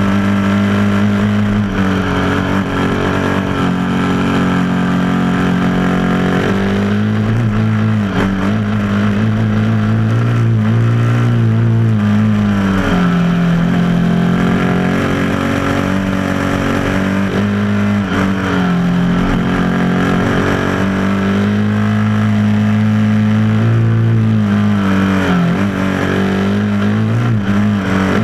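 Dirt bike engine running under way on a dirt road, its pitch dipping and rising several times with throttle and gear changes.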